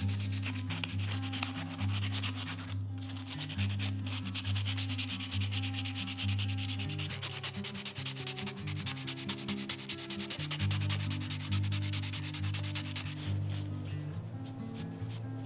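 Sandpaper rubbed back and forth over a wooden spoon in quick, continuous scratchy strokes, smoothing wood that has gone rough with use. The strokes thin out near the end.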